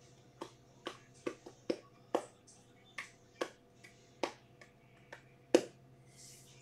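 About a dozen short, sharp clicks at uneven intervals, one or two a second, the loudest a little before the end, over a faint steady hum.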